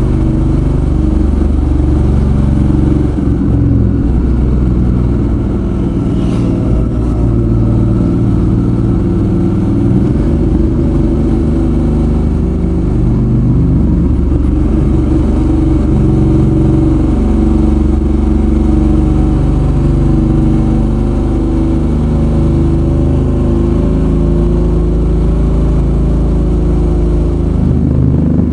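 Suzuki V-Strom 650's V-twin engine running on the move. Its pitch steps up and down as the throttle and gears change.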